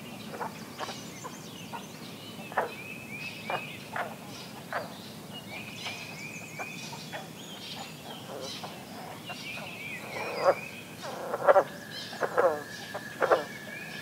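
Pond chorus: green frogs give single twangy calls, several of the loudest in the last few seconds, while songbirds sing short runs of quickly repeated notes. About three seconds before the end an American toad starts a long steady trill.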